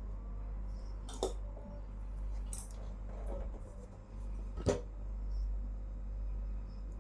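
Light handling noise of small parts and tools, with two sharp clicks, one about a second in and one near five seconds, over a steady low hum.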